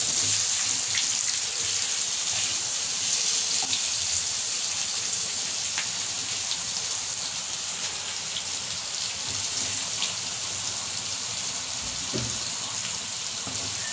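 Stuffed bitter gourds sizzling steadily in hot mustard oil in a pan, with a few light clicks of a spatula as they are turned.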